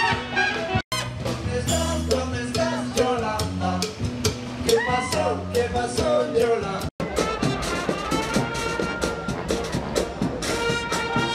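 Brass-band music with trumpets and drums. It breaks off for an instant twice, about one second in and again about seven seconds in, and goes on after each break.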